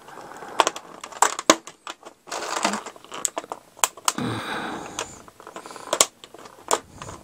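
Clear plastic blister tray clicking and crackling as an action figure is pulled out of it by hand: many sharp clicks, with a couple of longer crinkling stretches.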